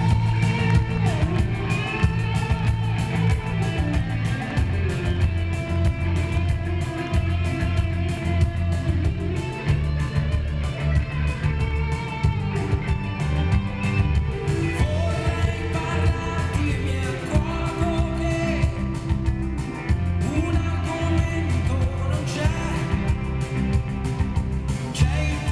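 Live pop-rock band playing in a concert hall: electric guitar and drums over a heavy, steady low end, recorded from among the audience.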